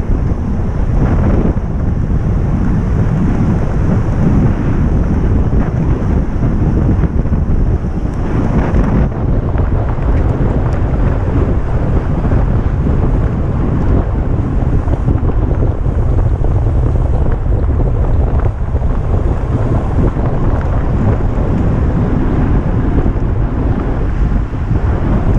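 Steady wind noise buffeting the microphone of a camera riding on a road bike at racing speed, a dense, loud rumble strongest in the lows.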